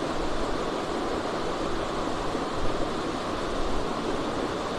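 A steady rushing noise that stays even throughout, with no clicks or change in pitch.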